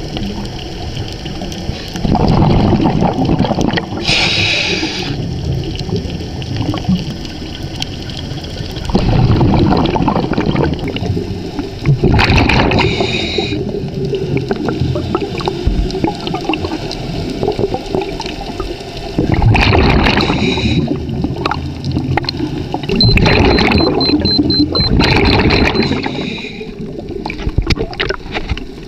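Scuba regulator breathing heard underwater: every several seconds a two-second rumbling gurgle of exhaled bubbles, alternating with a shorter hiss of the regulator on each inhale.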